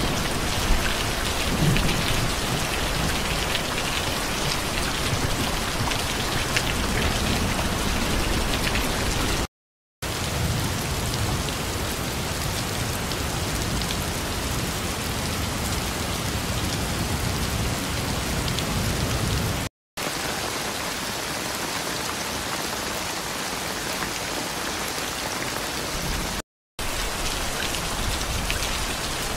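Steady rainfall hissing and pattering, cut off to dead silence for a split second three times.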